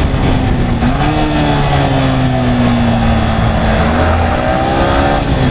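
Motorcycle engine running under way, with wind rush on the microphone. Its pitch rises about a second in, sags slowly, then dips and climbs again near the end.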